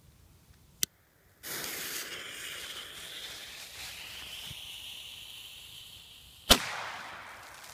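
Weco Superböller II firecracker: its fuse hisses and sputters steadily for about five seconds, then the cracker goes off with one loud, sharp bang that dies away over about a second. A short sharp click comes just before the fuse starts hissing.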